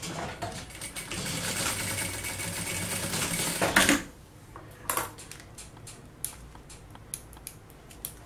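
Sewing machine stitching steadily through synthetic vinyl for about four seconds, then stopping sharply. A few light clicks follow as the piece is handled and the thread is trimmed with scissors.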